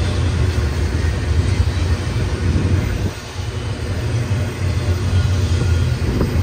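Double-stack intermodal well cars rolling past on the rails: a steady low rumble of steel wheels on track that dips briefly about halfway through.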